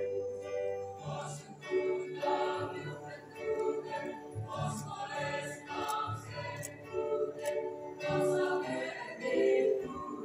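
Music with a choir singing: sustained sung notes over a steady bass line.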